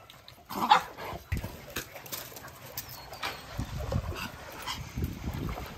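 A dog barks once, about a second in, followed by water splashing and dogs moving around a swimming pool.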